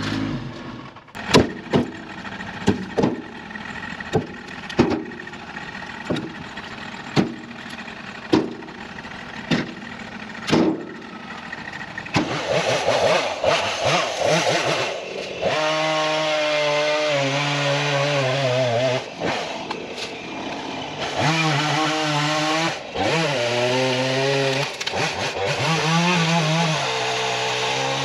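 A series of sharp knocks about once a second, then, about twelve seconds in, a chainsaw starts running at high revs and cutting oak, its pitch rising and falling as it works through the wood.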